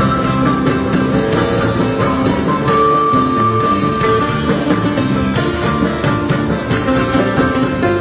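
Live band playing Andean folk dance music: guitars and drum kit over a steady beat, with a long held high note about three seconds in.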